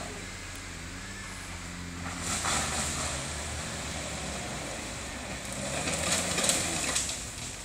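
Land Rover Series III engine running as the truck climbs a dirt mound off road, with the engine note rising and getting louder about two seconds in and again near the end.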